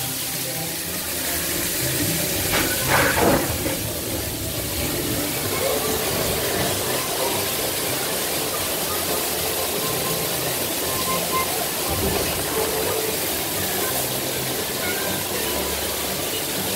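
Steady rushing water in a log flume ride's channel, with a louder swell about three seconds in. Faint ride music and voices sit underneath.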